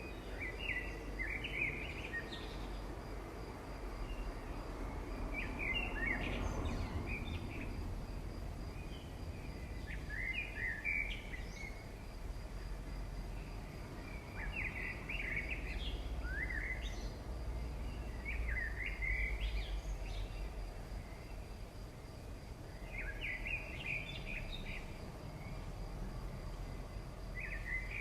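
A bird singing short chirping phrases, one every few seconds, over a steady low hum.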